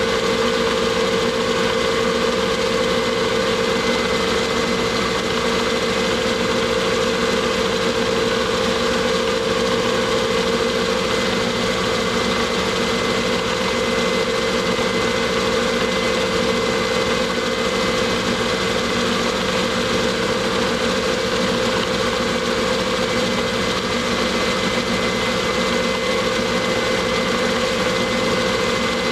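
Metal lathe running at a steady speed, a constant hum with a thin high whine over it, during taper cuts with the compound rest.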